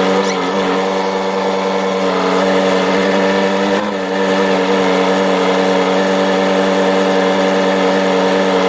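Ford 755 backhoe's engine running at a steady speed, a constant drone with a brief dip about four seconds in.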